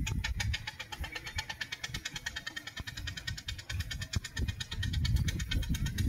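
Miniature single-cylinder steam ploughing engine working up a hill in high gear, its exhaust beating in a rapid, even rhythm over a low rumble.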